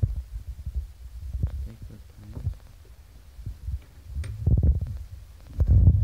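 Low, irregular rumbling and thumping from a handheld camera's microphone being handled and moved. It swells about four and a half seconds in and again near the end.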